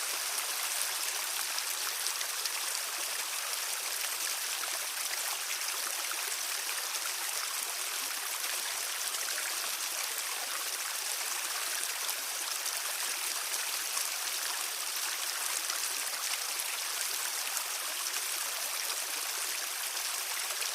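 Stream water flowing and babbling steadily over stones, a continuous hiss of running water with fine splashing detail.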